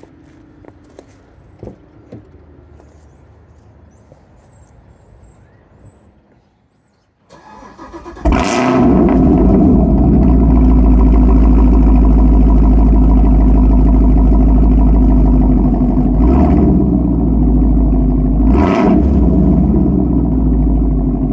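Chevrolet Camaro ZL1's supercharged V8, warm but not cold, cranks and fires about eight seconds in with a loud flare, then settles into a loud idle through the exhaust, with two brief throttle blips later on. Only faint outdoor background is heard before it starts.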